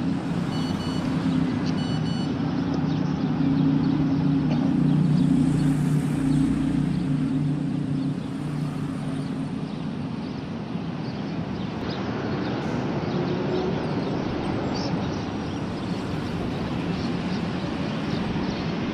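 Street traffic: a steady rumble of passing vehicles, heavier in the first half. Two short electronic beeps sound near the start.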